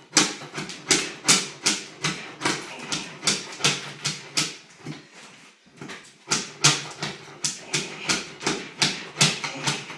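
A hand scraper jabbed again and again into old linoleum floor tiles, chipping them up: sharp scraping strikes about two to three a second, with a break of about a second midway.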